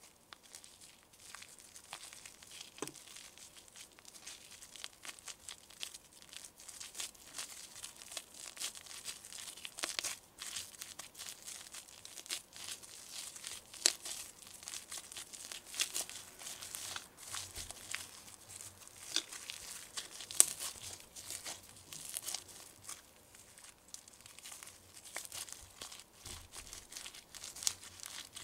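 Fluffy slime being squeezed, stretched and pulled apart by hand, giving a run of sticky crackles and small pops, with a few sharper snaps around the middle.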